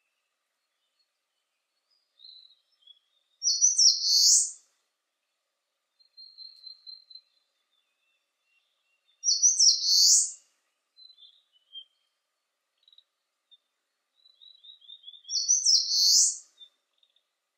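Eastern crowned warbler singing: three loud song phrases about six seconds apart, each a quick run of short high notes ending in a drawn-out buzzy note. Fainter calls of other birds fall in the gaps.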